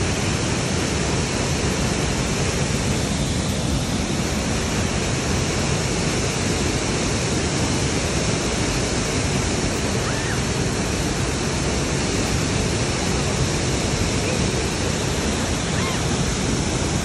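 Waterfall pouring into a plunge pool: a steady, even rush of falling water.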